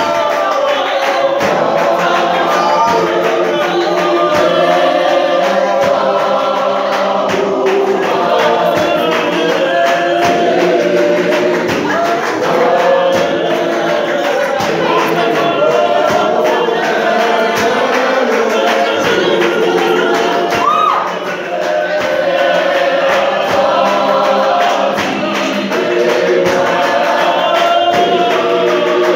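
Youth gospel choir singing in harmony, with steady rhythmic hand clapping.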